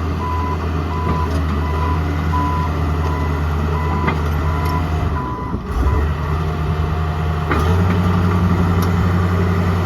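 Komatsu D41P-6 bulldozer's diesel engine running with its back-up alarm beeping steadily, about three beeps every two seconds. A little over halfway through the engine briefly dips and the alarm stops, and near the end the engine comes up louder and higher.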